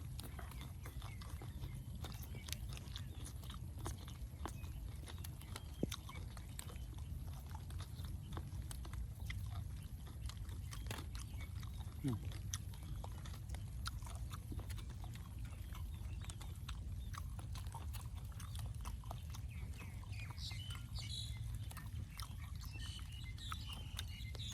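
A person eating: wet chewing and lip-smacking, heard as many small irregular clicks over a steady low background hum.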